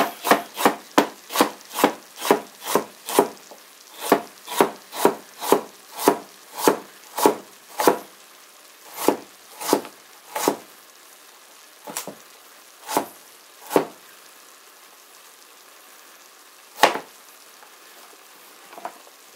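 A chef's knife slicing carrots into rounds on a plastic cutting board: steady chops about two a second for the first eight seconds, then slower, scattered cuts with a long pause near the end.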